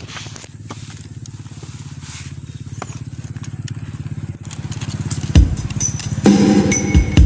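Electric grass trimmer, converted to run on a drone battery, running with a fast, even pulsing. About five seconds in, a much louder sound with steady high tones starts, stopping and restarting in short blocks.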